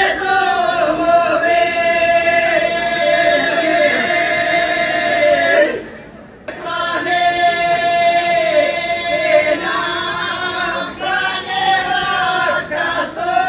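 Group of women in a folk ensemble singing together unaccompanied in long, held notes, pausing for breath about six seconds in and then singing on.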